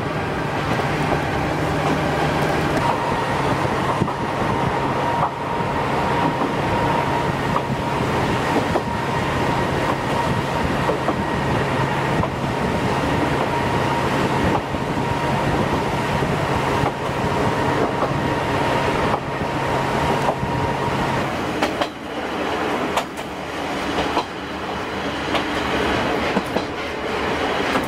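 Diesel railcar running, heard through an open window: a steady engine drone over wheels clicking across rail joints. About three-quarters of the way through the engine note drops away and the railcar runs on with the wheels still clicking.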